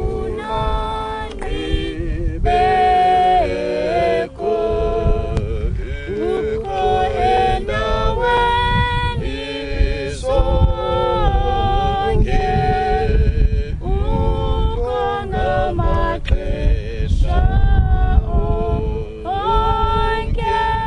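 A group of people singing together unaccompanied, several voices holding and sliding between notes at once, over a low rumble of wind on the microphone.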